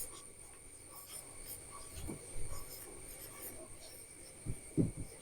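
Faint scratching of someone writing by hand, with a few soft low thumps near the end, under a steady faint high-pitched whine.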